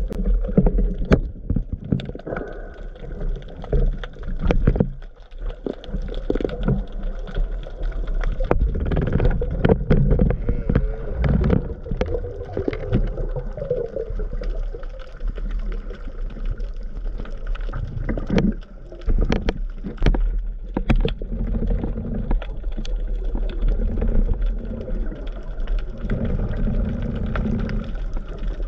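Underwater sound heard through a camera's waterproof housing: a muffled low rumble of moving water, with scattered clicks and knocks throughout.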